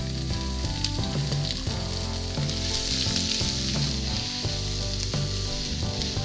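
Chopped onion sizzling in hot oil in a non-stick frying pan as it is tipped in and stirred with a silicone spatula; the sizzle swells a couple of seconds in.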